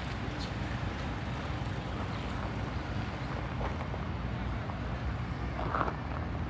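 Busy city street traffic: a steady rumble of passing vehicles, with a brief sharper sound a little before the end.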